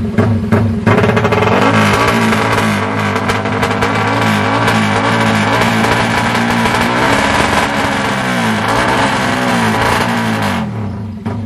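Yamaha MX King drag bike's single-cylinder four-stroke engine being revved in repeated throttle blips, its pitch rising and falling again and again. It starts about a second in and dies away near the end.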